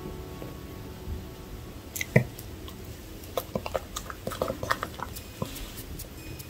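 Plastic chopsticks stirring and picking at saucy cheese tteokbokki in a tray: soft wet clicks and squishes, with one sharper click about two seconds in and a run of small clicks a second later.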